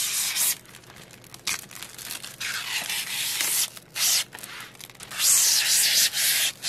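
Protective plastic film being peeled off the clear front of a magnetic picture frame, a crackling rip in several pulls, the longest near the end.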